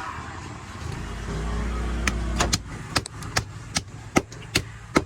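Heavy knife chopping through a large catla carp on a cutting block: sharp strikes, about two to three a second, beginning about two seconds in. A low engine hum sounds underneath before the chopping starts.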